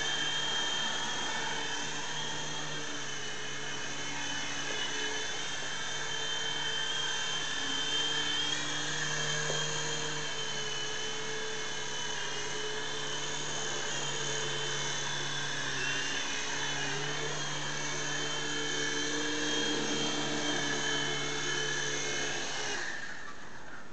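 Small three-channel indoor RC helicopter flying, its electric motors and rotors making a steady whine and hum that wavers slightly in pitch as the throttle changes. The motors cut off near the end.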